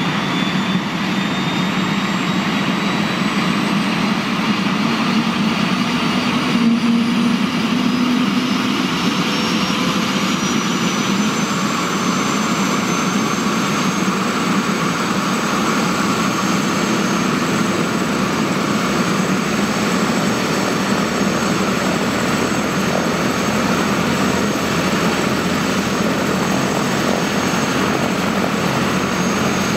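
Aérospatiale AS350 B3 Ecureuil helicopter running on the ground, its single turboshaft engine and main rotor turning steadily. A high turbine whine rises slowly in pitch over the first half, then holds steady, as the engine speeds up before lift-off.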